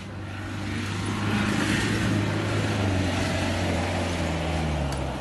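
Off-road 4x4 jeep's engine running steadily under load as it crawls over rock, a low drone with a steady hiss over it.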